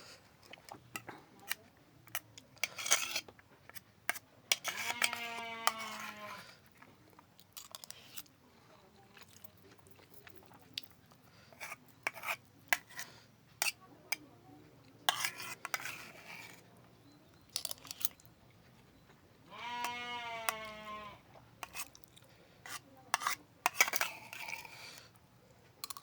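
Close-up eating sounds: wet chewing, lip smacks and sharp clicks as carp is eaten, in irregular runs. Twice a goat or sheep gives one long, wavering bleat in the background, about five seconds in and again about twenty seconds in.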